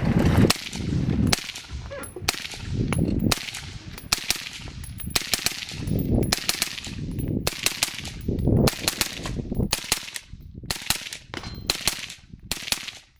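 Triarc TSR 15 AR-15 rifle with a SureFire RC2 suppressor firing a steady string of about twenty semi-automatic shots, roughly one to two a second, with the clang of hits on steel targets.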